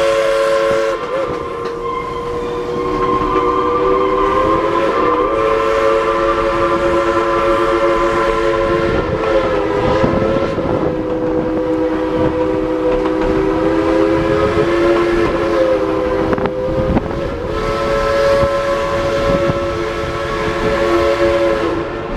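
Narrow-gauge steam locomotive's chime whistle blowing one long held chord of several notes that wavers a little in pitch, with the train rumbling along the rails underneath.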